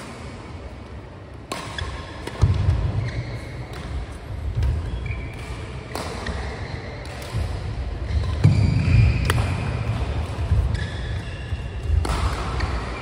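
Badminton singles rally: sharp racket hits on the shuttlecock every few seconds, short squeaks of shoes on the court mat, and heavy thudding footwork, the thuds loudest of all.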